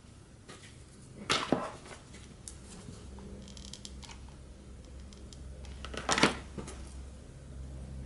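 Two short rustling scrapes about five seconds apart, with a few faint clicks between, as ribbon and a hot glue gun are handled on a cutting mat while an alligator clip is lined with ribbon.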